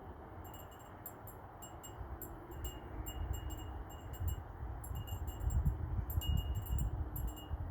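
Wind chimes tinkling in irregular clusters of short, high-pitched strikes in a snowstorm wind, over a low rumble of wind on the microphone. The gusts grow stronger about halfway through.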